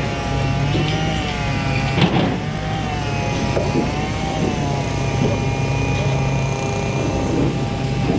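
A machine's engine or motor running steadily, its pitch wavering slightly up and down, with one sharp knock about two seconds in.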